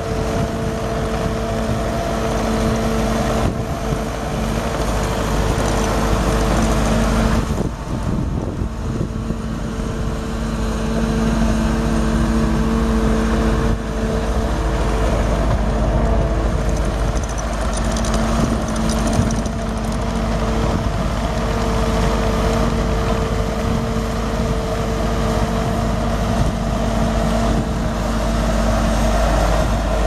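Kubota V3307 3.3 L four-cylinder turbo diesel of a Bobcat T630 skid steer running steadily with a constant hum. The sound dips briefly and changes about eight seconds in.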